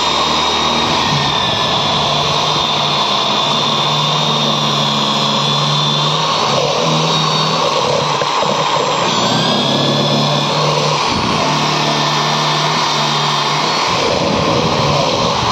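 Handheld electric power tool's motor running continuously while working the enclosure board, its pitch dipping and recovering as it takes load.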